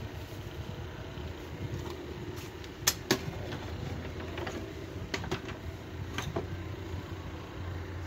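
Small rechargeable folding table fan running with a steady hum, with several sharp clicks between about three and six seconds in.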